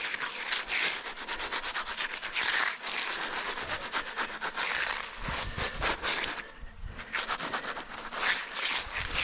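Tool rubbing and scraping across fresh concrete in repeated gritty strokes, each swelling and fading every second or two, with a low rumble in the second half.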